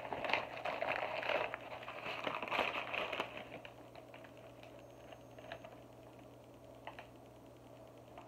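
Plastic bag rustling and crinkling as starch is poured from it into a plastic measuring cup, busiest for about three seconds, then quieter with a few soft clicks.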